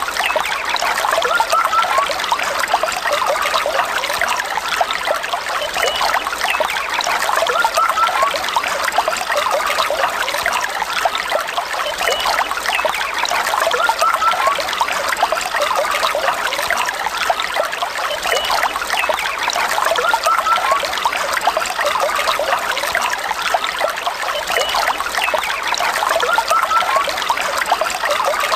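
A small stream trickling and flowing steadily.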